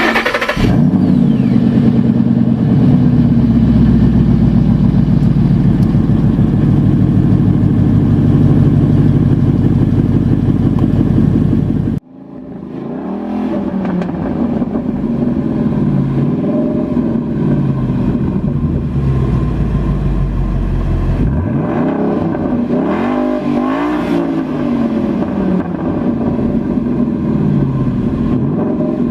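2013 Ford Mustang Boss 302's 5.0-litre V8 through its stock quad exhaust, running steadily. After a sudden break about twelve seconds in, it is revved up and down repeatedly, with a couple of bigger revs later on.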